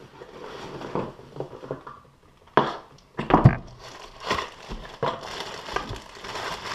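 Cardboard packaging rustling and scraping as a power sander is lifted out of its box and insert, with two sharp knocks in the middle, then a plastic bag crinkling as the tool is unwrapped.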